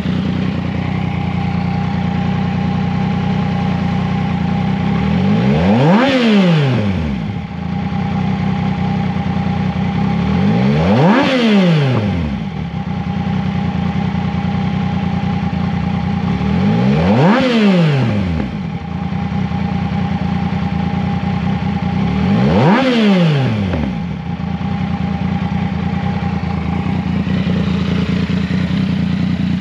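2019 Yamaha MT-09's 847 cc inline-three idling through an aftermarket slip-on exhaust, blipped four times. Each blip is a quick rev that rises and falls straight back to idle, about every five to six seconds.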